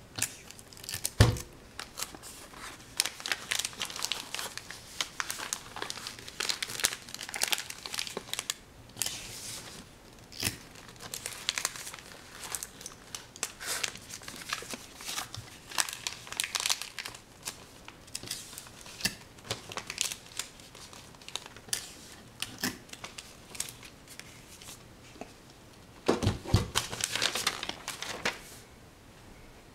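Irregular crinkling and rustling with many small crackles, growing louder in a flurry near the end.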